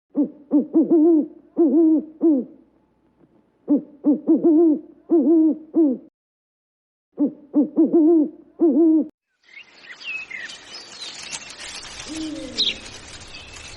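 An owl hooting: three series of low, rhythmic hoots with short gaps between them. After about nine and a half seconds, a different scene of chirping birds with a low cooing call.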